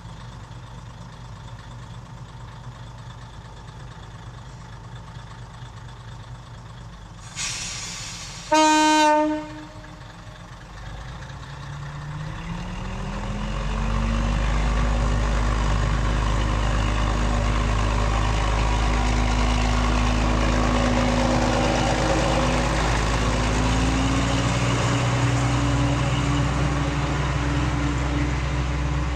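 Iwate Kaihatsu Railway KiHa 202 diesel railcar idling, then a brief hiss and one loud blast of its horn about eight seconds in. Its engine then revs up, rising in pitch, and runs steadily under load as the railcar pulls away from the station.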